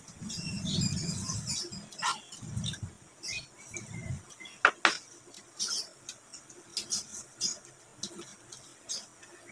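Eating sounds from people eating boiled chicken by hand: chewing and lip-smacking, with small clicks and taps of dishes and one sharper click a little under five seconds in.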